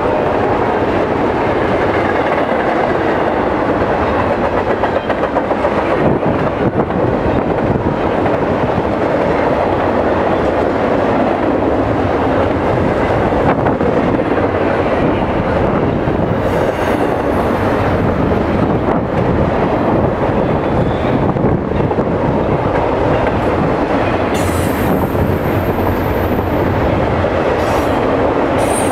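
A freight train of double-stack container well cars passing close by at speed: a loud, steady rumble of steel wheels on the rails, with quick clicking and clatter as the wheels run over the track.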